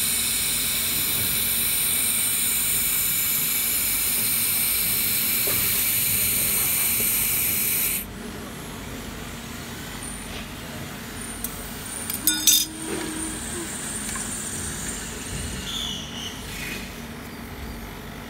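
Handheld fiber laser welder welding 3 mm aluminium sheet: a steady hiss with a high whine, cutting off abruptly about eight seconds in. A low hum continues after that, with a brief clatter about twelve seconds in.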